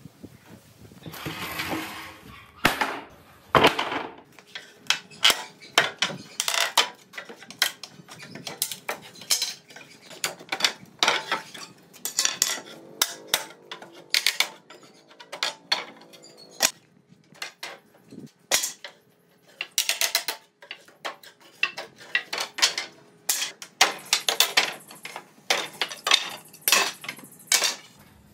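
Many sharp knocks and clatters of wood on wood and steel, coming in quick irregular runs, as wooden shipping pallets are pried apart with a steel pry bar.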